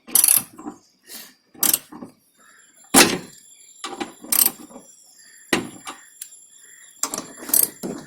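Hands and tools working on a car's plastic air filter box while a makeshift clamp is fitted and turned tight: a series of about seven sharp clicks and knocks, irregularly spaced.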